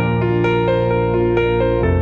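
Soft background music, gentle piano or electric keyboard notes over sustained chords.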